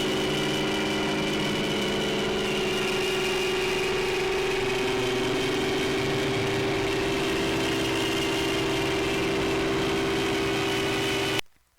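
Steady electronic drone of several held tones layered over a hiss, a 'planet sound' meant as a planet's magnetosphere made audible. It cuts off abruptly just before the end.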